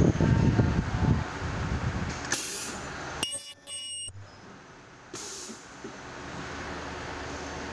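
Ultrasonic welding press cycling on a nylon lanyard strap: a hiss of air as the horn comes down, then a short high-pitched squeal of the ultrasonic weld lasting about half a second, and a second hiss about a second later as the horn lifts. Before that come a couple of seconds of irregular knocking and rustling as the strap is placed on the anvil.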